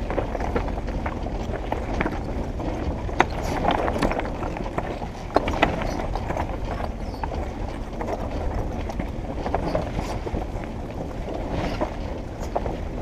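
Jeep Wrangler TJ crawling slowly over a rocky trail: a steady low engine and drivetrain rumble, broken by scattered knocks and clatter from the tires rolling over rocks and the body jolting.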